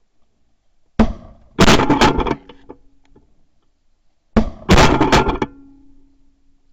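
Two bursts of shotgun fire at incoming sandhill cranes, each a single shot followed about half a second later by a quick run of several shots close together, with a faint ring after each burst.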